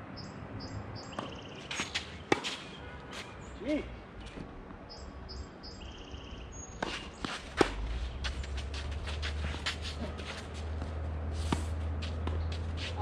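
Scattered sharp knocks of tennis balls bouncing and being struck on a hard court, the loudest about two and a half and seven and a half seconds in, with birds chirping in short stepped phrases. A low steady rumble comes in about eight seconds in.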